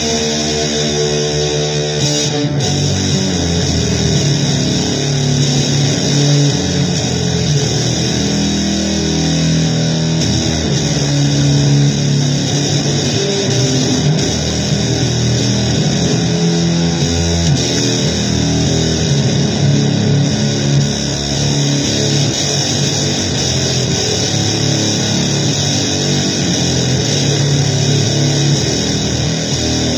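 Loud noise-blues music played on guitar: a dense, unbroken sound with shifting pitched notes over it.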